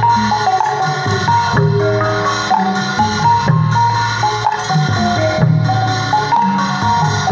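Shan gong chime, a row of knobbed bronze gongs in a frame, struck with mallets and playing a quick stepping melody of ringing notes over regular low beats, in traditional Tai (Shan) ensemble music.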